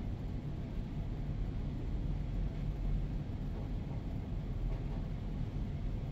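Schindler lift car travelling in its shaft: a steady low rumble heard inside the car.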